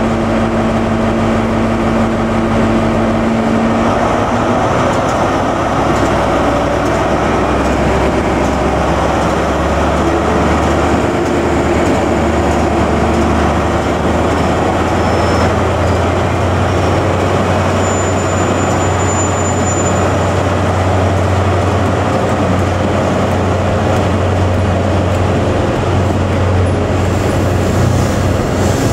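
A diesel train's engines running steadily, with the engine note shifting about three seconds in.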